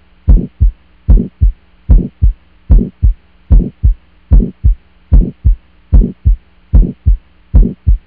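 Recorded heart sounds of early aortic stenosis, about 75 beats a minute. Each beat is a low-pitched crescendo-decrescendo ejection systolic murmur starting just after the first heart sound, followed by a short, sharp second heart sound. A faint steady hum runs underneath.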